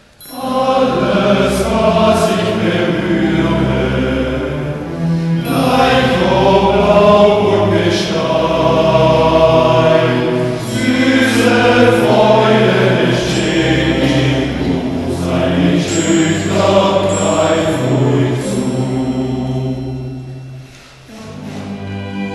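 Choir singing with instrumental accompaniment, coming in suddenly at full volume. Near the end it drops away to a quieter passage of held notes.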